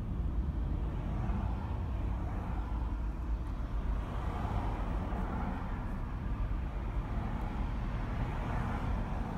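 Steady low rumble of a car driving slowly in traffic: engine and road noise.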